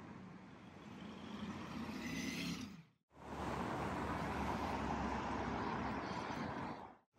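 City street traffic noise: cars driving past, a steady rush with engine hum underneath, broken by a brief gap about three seconds in.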